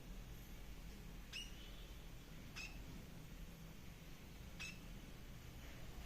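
A small bird calling, three short sharp chirps about a second and two seconds apart, over a faint steady low hum.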